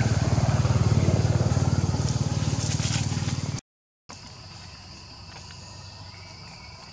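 A small engine runs steadily with a fast, even low pulse, then cuts off abruptly about halfway through. After a brief gap there is a much quieter ambience with a steady insect drone.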